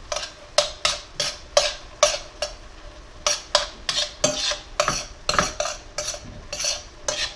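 A metal spoon stirring ground pork and sliced carrots in a steel skillet, scraping against the pan in quick, even strokes about two to three times a second.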